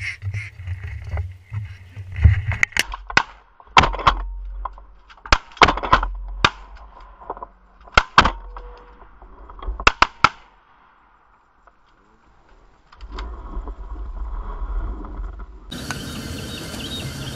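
Sharp, loud bangs and knocks in irregular clusters, often two or three in quick succession, muffled as if picked up through a camera housing mounted on a shotgun, over a low rumble.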